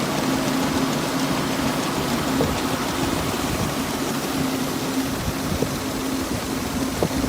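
Grain-handling machinery at a bin running steadily as barley is loaded into it: a constant hum over an even wash of noise.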